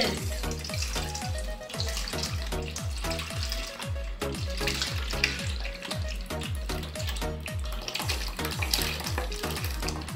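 Background music with a steady bass beat, over the hiss and splash of milk pouring from a carton into a stainless steel bowl.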